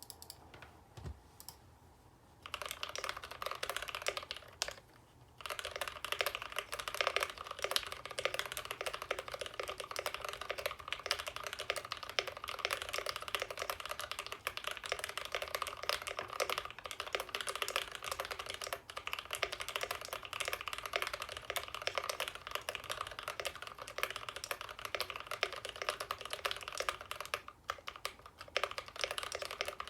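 Mechanical keyboard with retooled Cherry MX Black linear switches, lubed with Krytox 205g0 and filmed, being typed on: a few single key presses, then a fast, steady stream of keystrokes with a short break about five seconds in.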